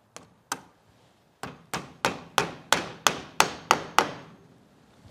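Hammer driving a nail up through a rubber garage door bottom seal into the bottom edge of a wooden garage door. Two light taps come first, then after a short pause a run of about nine steady blows, about three a second, each louder than the one before.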